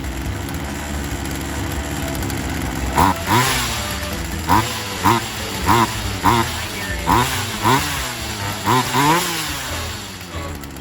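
Poulan Wild Thing 2375 chainsaw's two-stroke engine running with no bar or chain fitted, being tested after a low-speed carburetor mixture adjustment. It runs steadily for about three seconds, then the throttle is blipped about ten times in quick succession, each rev rising and falling.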